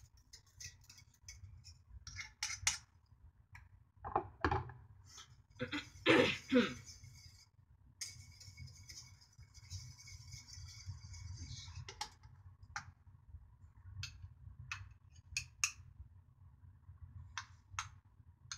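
Wire whisk stirring milk and cream in a metal saucepan, with taps and clinks of metal on the pan and a stretch of steady whisking about halfway through. Near the end, a spoon scrapes and taps black sesame paste from a bowl into the pan.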